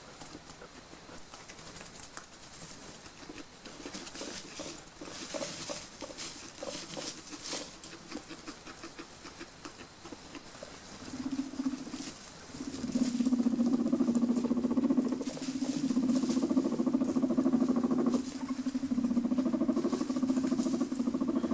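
Guinea pigs moving about with faint rustling and clicking, then about halfway through a guinea pig starts a louder, low vibrating purr that comes in several bouts with short breaks.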